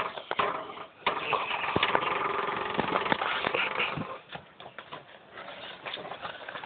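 A person snoring: one long, rattling snore begins about a second in and lasts around three seconds, then dies down to quieter breathing noises.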